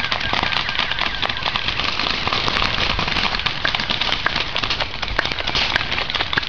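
Airsoft guns firing: many sharp pops in quick, irregular succession. Under them runs a constant crackling rustle of movement through dry leaf litter.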